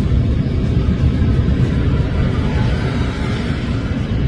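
Steady low rumble with a fainter hiss above it.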